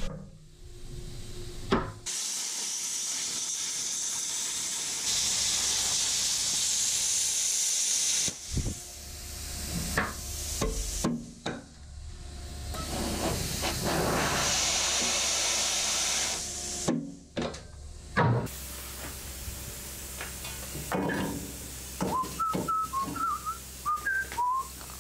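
Air plasma cutter cutting out steel boat ribs: a steady hiss from the torch in several long stretches, broken off sharply between cuts, with a few metallic knocks. The cutter is an old unit on its last legs.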